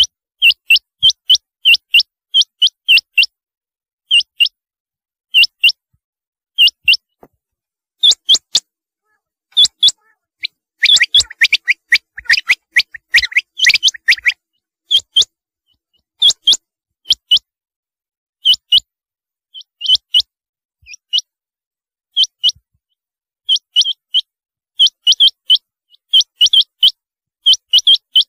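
Rain quail calling: short, sharp notes, mostly in pairs, repeated in quick runs with brief pauses. Around the middle there are a few seconds of denser, lower calls that overlap one another.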